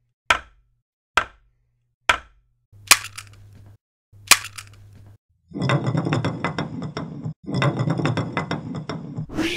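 A series of single sharp clinking hits, five in all, each ringing briefly, followed by about four seconds of dense clattering and rattling, broken once by a short gap.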